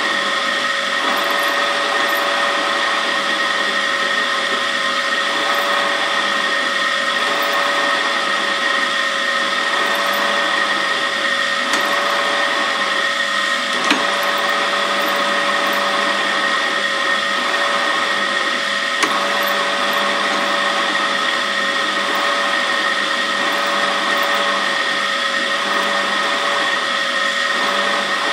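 Pillar drill's motor running with a steady whine as its bit bores slowly into a thick metal block held in a vise, with two small ticks about halfway through.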